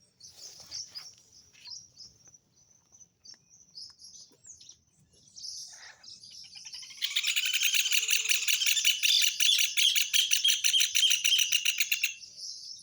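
Songbirds chirping, scattered faint high calls at first. About seven seconds in, one bird breaks into a loud song of very rapid notes that lasts about five seconds and then stops abruptly.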